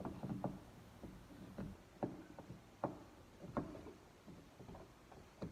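Faint, irregular clicks and light taps as a GM pickup's outside door handle and a screwdriver are worked into the door shell while the handle is fitted.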